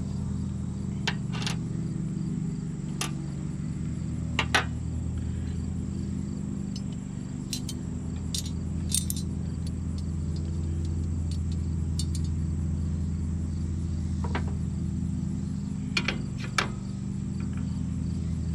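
Small metal tools and parts clinking and tapping in irregular sharp clicks, over a steady low hum.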